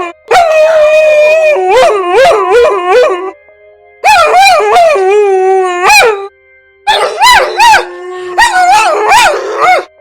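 Several dogs howling together in three long bouts with short pauses between them, one voice holding a low steady note while others waver up and down in short rising-and-falling notes.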